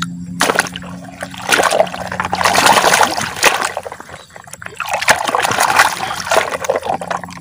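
Water splashing and sloshing as a sand-caked plastic toy dump truck is swished by hand through shallow muddy water to wash the sand off, in two bouts with a short lull between.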